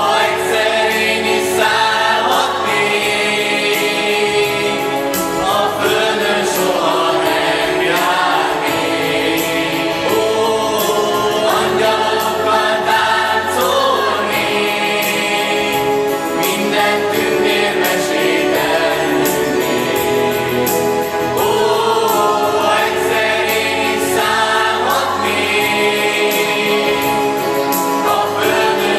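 Mixed choir of young men and women singing, led by a male soloist at the microphone.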